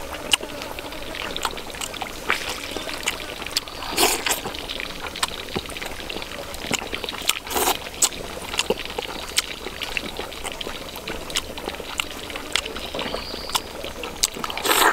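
Close-up eating sounds, chewing and lip smacks clicking many times, with a couple of louder slurps, over the steady trickle of a stream.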